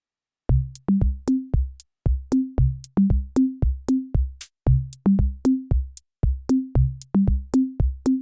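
Background music: a drum-machine beat of short, sharp hits with short pitched low drum tones in a steady repeating pattern, starting about half a second in.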